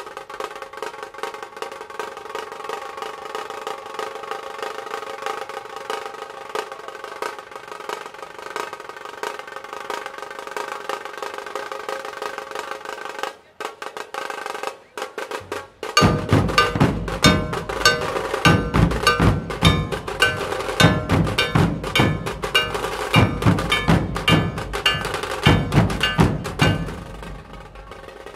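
A dhol-tasha ensemble: tasha drums are played in a fast continuous roll with a steady ringing note over it. After a brief break about halfway through, the big barrel-shaped dhol drums come in with heavy deep beats under the tashas, then drop out near the end.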